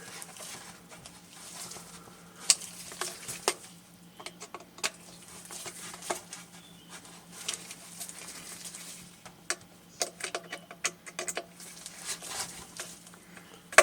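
Small Phillips screwdriver driving the screws into the plastic back of a radio's display unit, with scattered light clicks and taps of the tool and the case as it is handled.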